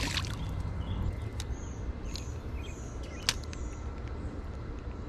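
A small bird chirping several short, high notes over a steady low rumble, with a sharp click about three seconds in.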